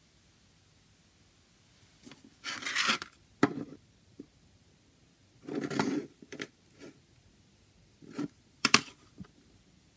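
Plastic CD jewel case being picked up and turned over in the hands: two short scraping rubs and several sharp plastic clicks, the sharpest pair of clicks near the end.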